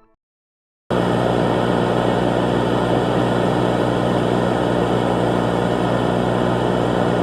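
After about a second of silence, a loud, steady drone of hum and hiss starts abruptly and holds unchanged.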